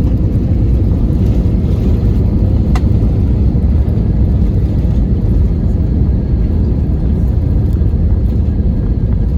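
Steady low rumble of an airliner cabin in flight.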